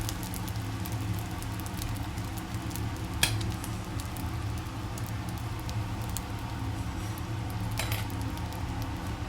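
Food frying and sizzling over a steady low rumble, with a few sharp clinks; the loudest comes about three seconds in, and another just before eight seconds.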